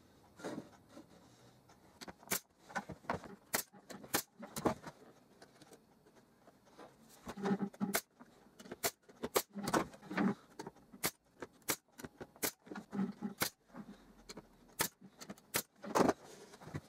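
Pneumatic brad nailer firing brads into a plywood box, a string of sharp shots coming irregularly and in clusters, with duller knocks of the plywood panels being handled between them.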